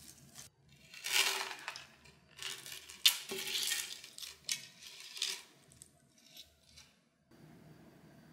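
Pearl beads and metal chain strap of a beaded mini bucket bag clinking and rattling as the bag is handled, in several bursts with a few sharp clicks.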